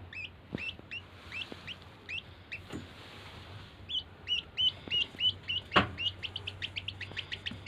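A baby bird chirping over and over, each call a short high peep that bends up and then down. The calls come about twice a second at first and quicken to about four a second from about halfway. A single knock sounds near the end.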